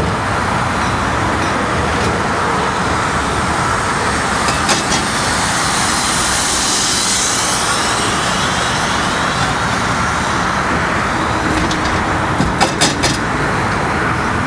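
Steady rumble of heavy machinery and roadway traffic, with a broad swell of hiss around the middle. A short burst of rapid, evenly spaced hydraulic breaker blows comes about four and a half seconds in and again near the end.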